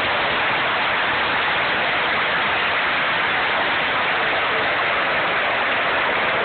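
Large arena crowd cheering without a break, a steady dense wall of noise with no chant or words standing out.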